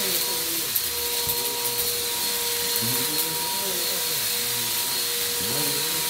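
Green Bissell upright vacuum running on carpet: a steady motor whine with several fixed tones over an even hiss of airflow.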